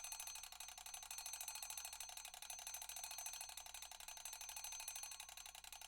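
Mechanical alarm clock bell ringing, its hammer striking the bell in a fast, steady rattle.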